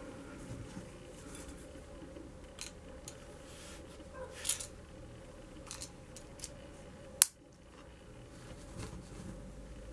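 A dagger's steel blade sliding into a leather sheath with a short scrape about four and a half seconds in, then a single sharp click as the sheath's press-stud retaining strap is snapped shut. Light handling taps and rustles come before it.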